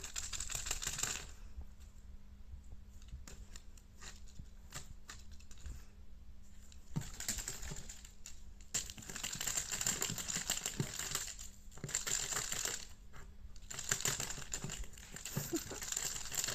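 Crinkly rustling of a cat teaser stick with a crackling film toy, shaken and batted in several bursts lasting one to a few seconds, with small clicks and taps between the bursts.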